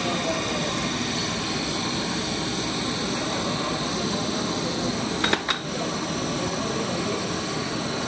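Steady whooshing noise of running workshop machinery, with two short clicks a little past halfway.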